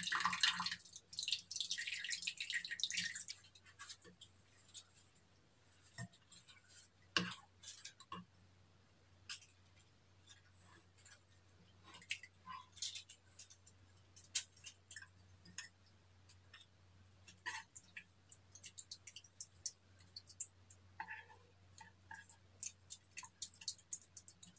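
Clear glue slime being mixed in a glass bowl, first stirred with a plastic spatula and then worked by hand. A wet, crackly hiss for the first few seconds, then scattered sticky clicks and pops.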